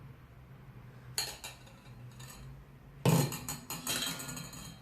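Kitchen utensils clinking and clattering as tea is poured from the pan into a cup: two light clicks, then about three seconds in a loud knock followed by a quick run of clinks and rattles.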